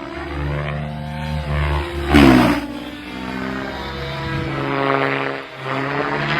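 RC helicopter in flight: the motor and rotor whine, its pitch sweeping up and down as the model manoeuvres, with a sudden loud surge about two seconds in.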